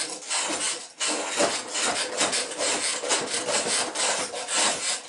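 Spokeshave shaving the solid wooden hull of a toy pond yacht, in quick repeated pulls, each a short rasping scrape of the blade cutting wood.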